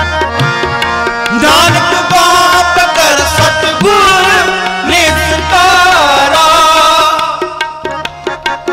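Gurbani kirtan: a long, wavering sung line over held accompaniment chords and tabla. About seven seconds in the singing stops and the tabla plays on alone, quieter.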